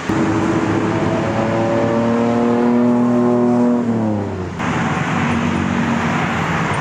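Traffic on a busy city road. A motor vehicle's engine passes close by, its pitch dropping as it goes past about four seconds in, followed by steady traffic noise with a fainter engine hum.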